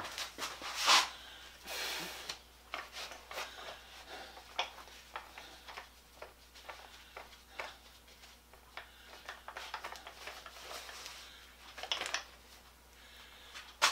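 Irregular light metallic taps and clicks, the loudest about a second in, from tapping on the end of a drill bit stuck in a drill chuck held in a vise. The tapping knocks the chuck jaws back to loosen a bit that had been spinning in the chuck.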